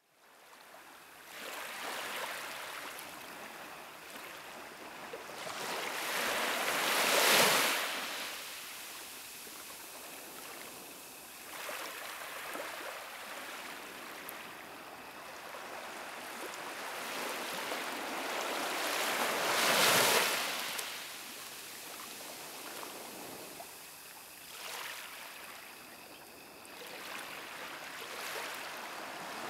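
Small waves washing onto a sandy beach: a steady hiss of surf that swells and fades, loudest in two surges about seven and twenty seconds in.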